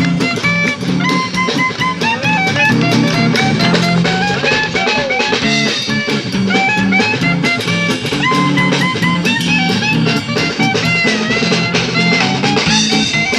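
Live swing jazz from a small street band: a lead melody over guitar and a drum kit keeping a steady beat.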